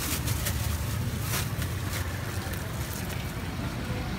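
Steady low rumble of outdoor street noise, with a few short rustles in the first half.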